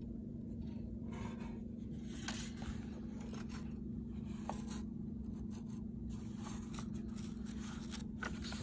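Soft paper rustles and scrapes as a picture book's pages are handled and turned, over a steady low hum.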